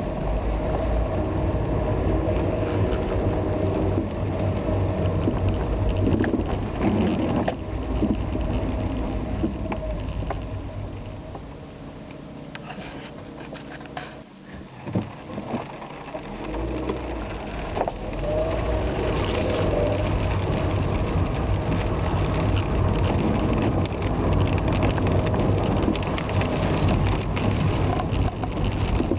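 Vehicle driving on wet roads in the rain: steady engine and tyre noise. It eases off for a few seconds around the middle, then picks up again.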